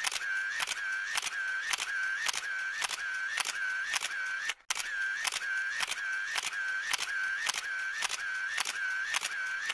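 Rapid, evenly spaced clicking, about three clicks a second, with a wavering tone between the clicks; the pattern cuts out briefly about halfway through and then resumes.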